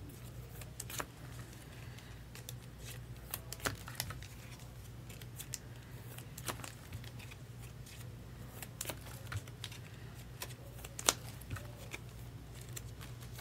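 Irregular light clicks and taps of trading cards, card holders and packaging being handled, with one sharper click near the end, over a steady low hum.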